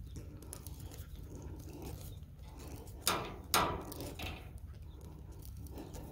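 Screw-in house-knob insulator being twisted into a wooden fence post with pliers: quiet grinding and creaking of the screw biting into the wood, with two sharp clicks about three seconds in, half a second apart. A low steady rumble runs underneath.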